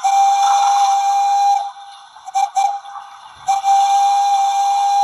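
Steam whistle sound played by a DCC sound decoder (ESU LokSound V5 Micro) through the small speaker of a Bachmann Emily model locomotive: a long whistle, then a couple of short toots, then another long whistle about three and a half seconds in.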